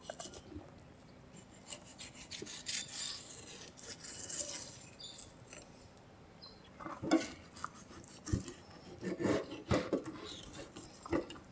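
Chef's knife slicing and scraping through a raw fish fillet on a stainless steel table: intermittent soft scrapes with a few light clicks of the blade, the busiest scraping a few seconds in.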